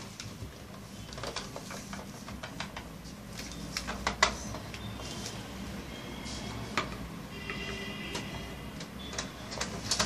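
Small plastic toy pieces clicking and knocking as they are handled and set down on a table, over a steady low hum, with a brief high squeak-like tone about three quarters of the way through.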